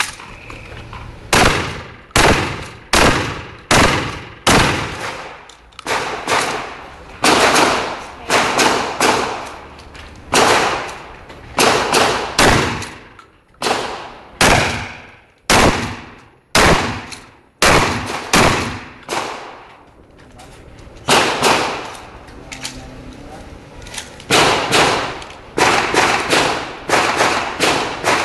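Shotgun firing a long series of loud shots in quick strings of two to six, with short pauses between groups. Each report has a brief decaying tail.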